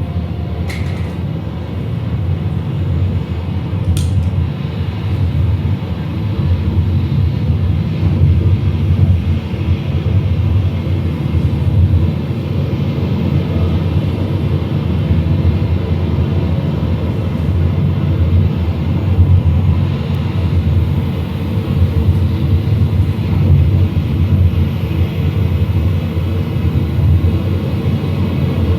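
Dense, steady low rumbling drone of a live noise-music performance, with two sharp clicks about one and four seconds in.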